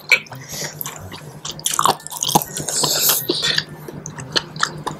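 Close-up mouth sounds of eating seblak: wet chewing and slurping of noodles in spicy broth, a run of short wet smacks and clicks.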